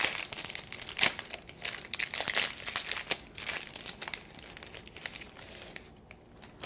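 Crinkling and tearing of a Pocky box's silvery inner wrapper as it is pulled open by hand. The rustling is dense at first and thins out after about four seconds.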